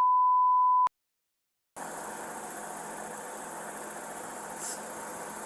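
A censor bleep: a steady, loud 1 kHz beep lasting about a second that blots out the driver's spoken last four digits of his social security number. The sound then cuts out completely for under a second and comes back as a steady hiss with the low hum of an idling car engine.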